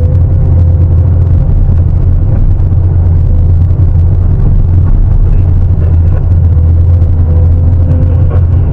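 Sany 750 hydraulic excavator's diesel engine and hydraulics running under load: a loud, steady low rumble with a thin, steady whine above it.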